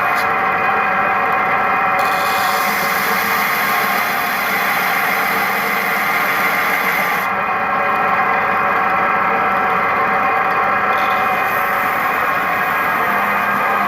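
Homemade belt sander's electric motor and belt running steadily with a mix of steady whining tones. A higher hiss joins from about two to seven seconds in, and again briefly near the end.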